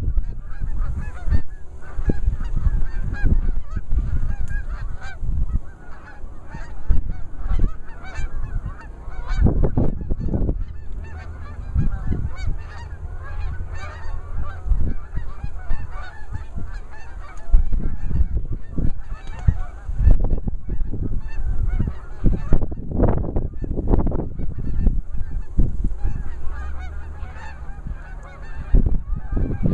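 Geese honking over and over, many honks overlapping without a break.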